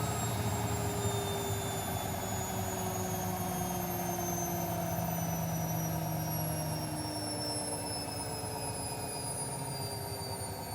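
Techwood WB 91042I washing machine spinning down: the motor and drum whine falls slowly and evenly in pitch as the drum slows, with a steady rumble underneath.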